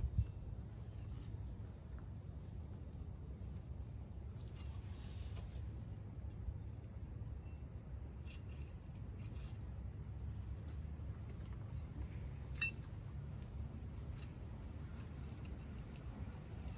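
Gasket scraper taking old RTV sealant off the engine block's oil pan mating surface: faint scratchy scraping, one stretch about five seconds in, with a few light metallic clicks, the sharpest about twelve seconds in. A steady low rumble runs underneath.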